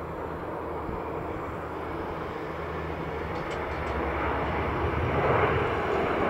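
Bombardier Challenger 350 business jet climbing out after takeoff, its twin Honeywell HTF7350 turbofans making a steady jet noise. The noise grows louder over the last two seconds or so as the jet climbs closer.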